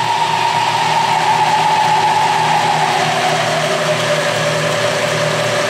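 Clausing horizontal milling machine running, its variable-pitch belt drive being shifted down from the highest speed toward the lowest. A steady machine whine slides lower in pitch from about two seconds in and settles at a lower note near the end, over a steady running hum.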